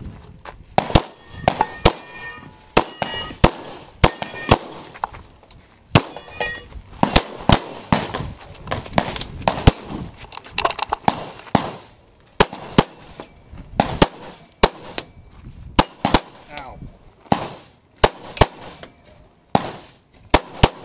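A CZ 75 SP-01 Shadow pistol firing about two dozen shots in quick strings with short pauses. Several shots are followed by a high ringing ping from bullets striking steel targets.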